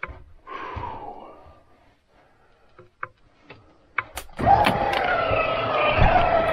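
A couple of sharp clicks, then about four seconds in an electric motor on an RV travel trailer starts and runs with a steady whine, an extending mechanism under power.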